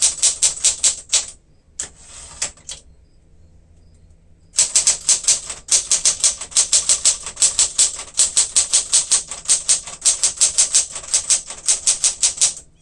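Keystrokes of a 1967 Smith-Corona Super Sterling manual typewriter, typing at about five strokes a second. The typing breaks off briefly about two seconds in, picks up again about five seconds in and runs steadily until just before the end.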